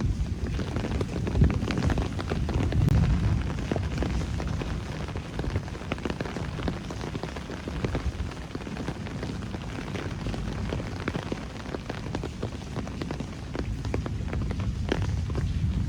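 Steady rain falling on city streets and surfaces, with many close drops ticking sharply over a low rumble. It swells slightly a second or two in.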